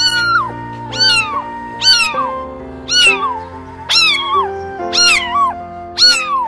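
A cat meowing over and over, about once a second, seven times: each meow high-pitched, sliding up quickly and then falling away. Background music with long held notes plays underneath.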